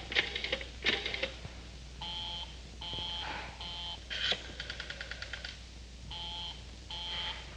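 Telephone busy signal: a two-tone beep repeating in short on-off pulses, broken about midway by a quick run of about ten clicks.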